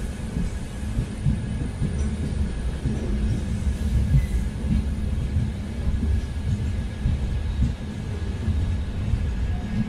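Loaded freight wagons of a coal train rolling past on the rails: a steady low rumble with scattered irregular knocks from the wheels and running gear.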